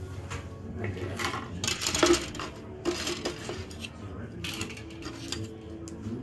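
Hard plastic kit parts and sprues clattering and clicking as they are handled, with a crinkly plastic rustle; the loudest clatter comes about two seconds in.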